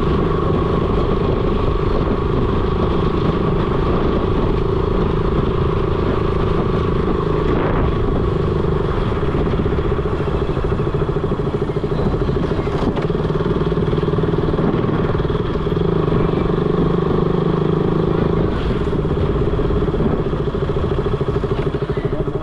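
Motorcycle engine and exhaust running at a fairly steady speed while being ridden, with road and wind noise underneath.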